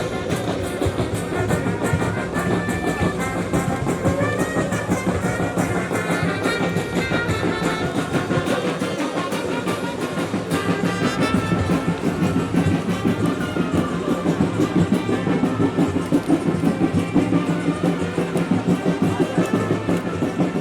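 Music with brass instruments and drums.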